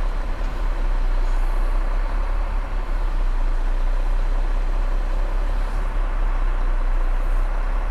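Truck running at road speed, heard from inside the cab: a steady low engine rumble under an even wash of road and wind noise.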